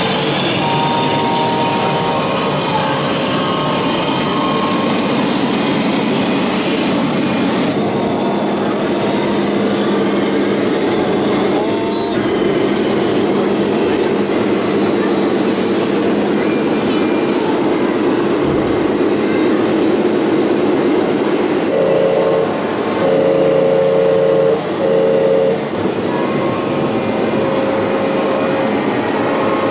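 Air-horn blasts from radio-controlled model trucks' sound modules over a steady din of crowd chatter and running model trucks. The loudest is a run of two-tone horn blasts about three-quarters of the way through.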